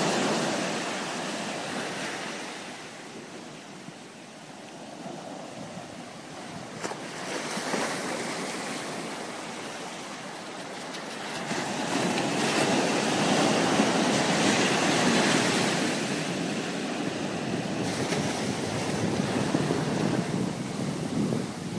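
Ocean surf breaking and washing up a sandy beach, a steady rush that swells and fades with the waves, growing louder from about halfway through.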